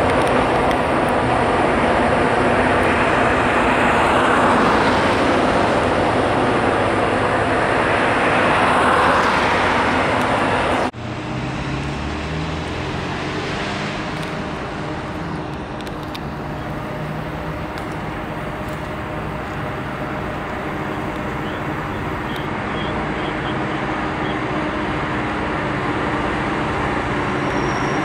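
A freight train's EMD diesel locomotives and cars rumbling loudly, swelling twice. An abrupt cut about eleven seconds in switches to a quieter steady diesel engine drone that slowly grows louder toward the end.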